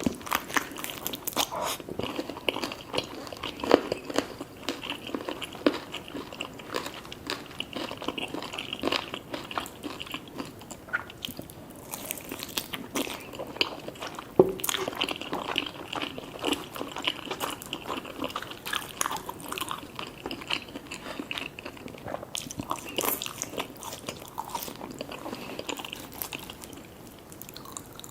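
Close-miked chewing and crunching of crispy fried food, with wet mouth sounds and irregular crackles and a few louder crunching bites.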